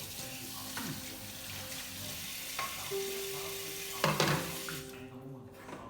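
Tap water running and splashing over humidifier parts as they are rinsed, with a few knocks of the parts against the sink, the loudest a clatter about four seconds in. The water stops shortly before the end.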